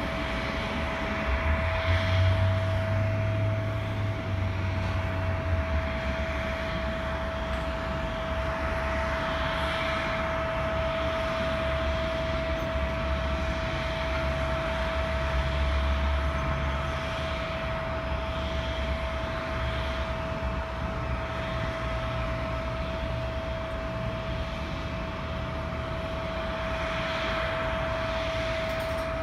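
Korean Air jet airliner running on the ground with a steady whine over a low rumble; the rumble swells twice.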